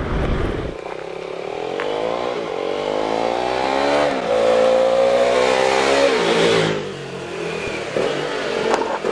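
Motorcycle engine accelerating, its pitch climbing for a few seconds, holding, then dropping back about two-thirds of the way through before it starts rising again near the end.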